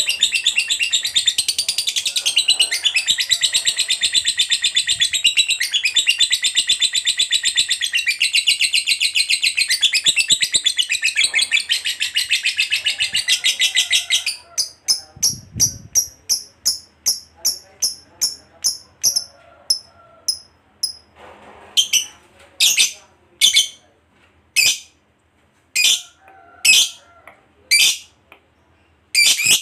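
Lovebird's 'ngekek panjang', the long rapid chattering trill prized in a singing lovebird, running unbroken for about fourteen seconds. It then breaks off into separate sharp chirps, at first about two a second, then more spaced out.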